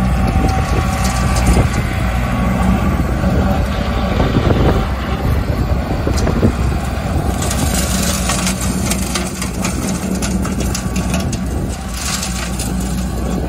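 A compact tractor's engine runs steadily while driving a rear-mounted rotary cutter (bush hog) through brush. In the second half, rapid crackling and clattering of shrubs and debris being shredded by the blades rides over the engine.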